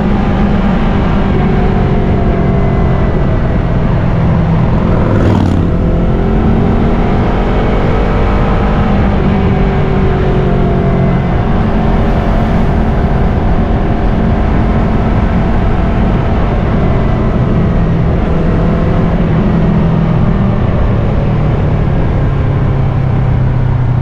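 Yamaha R3's parallel-twin engine running under way, recorded on board, with wind noise over the microphone. Its pitch holds fairly steady, dipping and climbing again about five seconds in.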